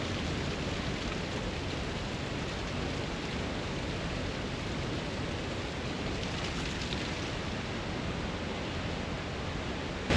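Steady rushing noise of falling water, even and unbroken throughout.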